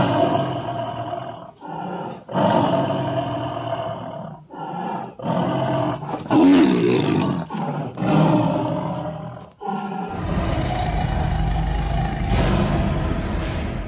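White tiger snarling and roaring in a series of about five loud, harsh calls with short pauses between. About ten seconds in, the calls give way to a steadier, low rumble.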